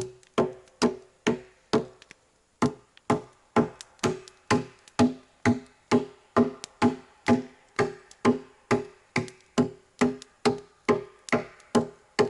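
Axe chopping into a log at an even pace, about two strikes a second. Each strike is a sharp woody knock with a short ringing tone, with a brief pause about two seconds in.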